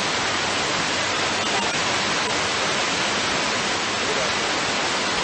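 Steady hiss of static from an aviation VHF radio receiver on an air traffic control frequency, with no transmission being made.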